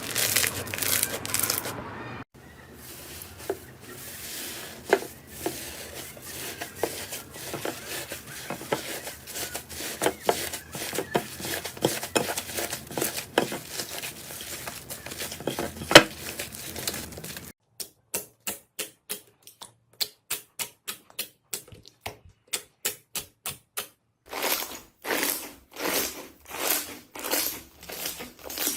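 Slime being handled and pressed for ASMR: a long run of crackling and popping, then evenly spaced sharp pops, about three a second, then regular squelching strokes, a little more than one a second.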